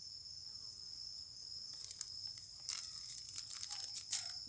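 Insects chirring in a steady high-pitched chorus, with a run of crackling, crunching clicks through the second half, loudest near the end.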